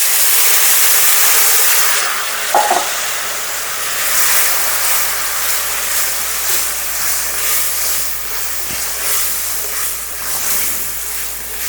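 Water poured into a hot pan of frying spice paste and tomato paste, hitting with a sudden loud sizzle that is strongest for the first couple of seconds, then settles into a steady sizzling hiss.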